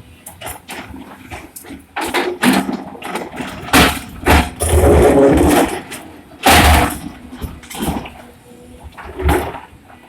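Excavator and dump truck working at a stone mine: engine running under irregular heavy crashes and rumbling surges of stone being loaded, loudest about four and six and a half seconds in.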